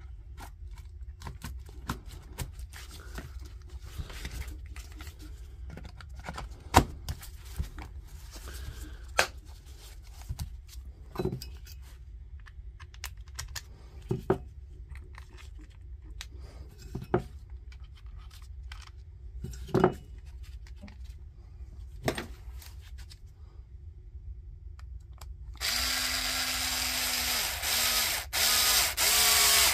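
Plastic battery case parts clicking and knocking as they are fitted together. Near the end a power drill-driver runs steadily for about three seconds and then in a few short pulses, driving the screws back into the battery housing.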